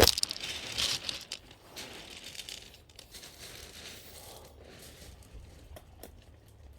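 Close rustling and crinkling handling noise with scattered small clicks, as hands work at knotted fishing line wrapped round a seagull's feet; a sharp click at the start, then quieter after about two seconds.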